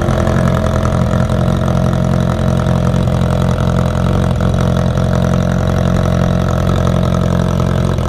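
Suzuki Bandit's inline-four engine idling steadily through a homemade exhaust tip made from a Coca-Cola can with a baffle inside, fitted on the end of the header pipe.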